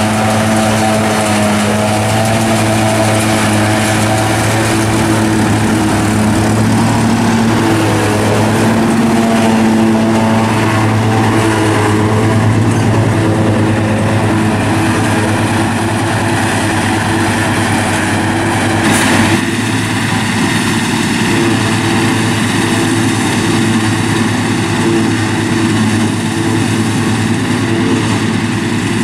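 Fortschritt E 281C forage harvester and Massey Ferguson 7480 tractor working a silage harvest together: a loud, steady diesel engine drone with the hum of the harvester's running chopper. The engine note changes suddenly about two-thirds of the way in.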